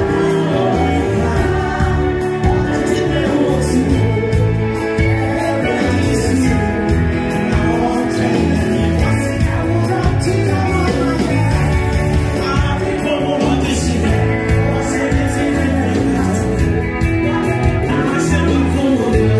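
Live gospel worship song: singers on microphones over a band of keyboard, drums and electric guitar, played through the church PA. It continues steadily at a loud, even level.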